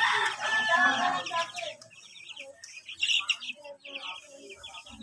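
A brood of young chicks peeping in a steady chatter of short, high cheeps. There are louder, lower clucking calls in the first two seconds.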